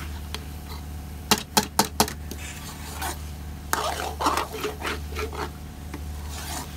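A spoon stirring and scraping in a pot of boiled white lobiya beans being fried in masala, with four quick knocks against the pot about a second and a half in, then a run of scraping strokes.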